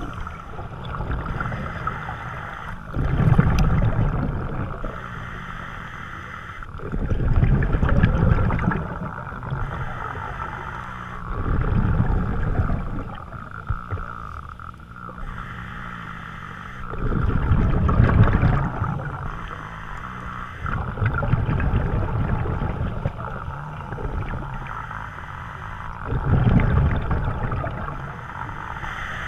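Scuba diver's regulator breathing underwater: a gush of exhaled bubbles gurgling past the camera about every four to five seconds, over a steady hiss.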